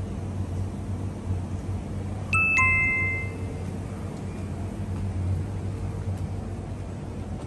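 A two-note ding-dong chime, a higher note followed by a lower one, rings out once about two and a half seconds in and fades over about a second, over a steady low hum.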